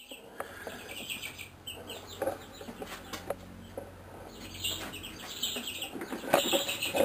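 Birds calling in short repeated notes over a low steady hum, with a few sharp knocks near the end.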